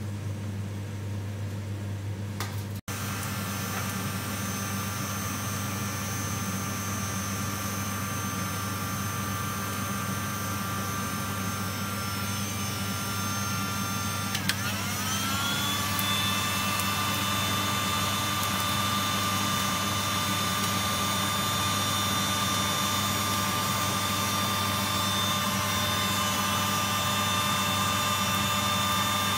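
Electric blower motor running with a steady drone and whine, fanning air onto a charcoal grill. About halfway through, its whine slides down in pitch and settles, a little louder.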